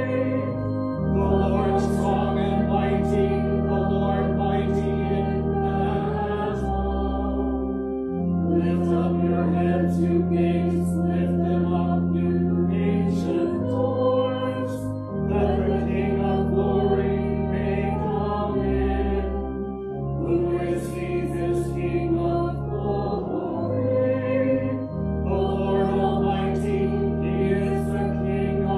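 A congregation singing a hymn over held keyboard chords, phrase by phrase, with short breaks between phrases where only the chords sound.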